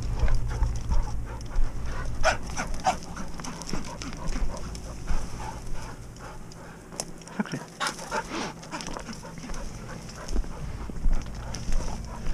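Dry brush crackling and footsteps on stony ground, with a working springer spaniel panting close by.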